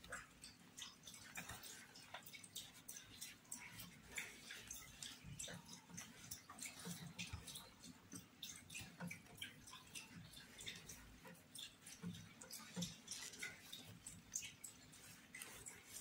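Faint rustling and soft irregular clicks of an 8 mm crochet hook working chunky t-shirt yarn, stitch after stitch.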